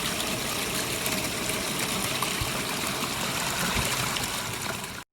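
Pondless backyard waterfall running, a steady rush of water splashing down over rocks. It cuts off abruptly at the very end.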